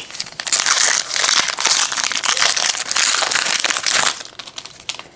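A Panini Donruss football card pack's wrapper crinkling and crackling as it is torn open and pulled off the cards. It runs for about three and a half seconds and stops about four seconds in.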